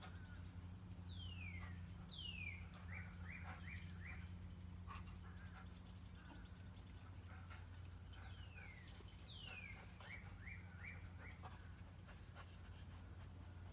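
A songbird singing the same phrase twice, about seven seconds apart: two downward-sliding whistles, then a quick run of four or five short chirps. Scattered light clicks and a steady low hum run beneath it.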